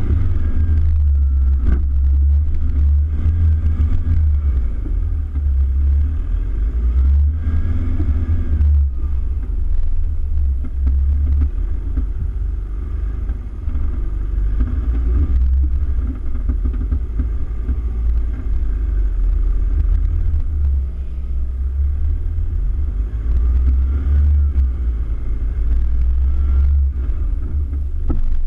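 Toyota Hilux pickup driving over soft sand dunes: a heavy, steady low rumble from the vehicle that swells and dips, with the engine note rising and falling faintly now and then.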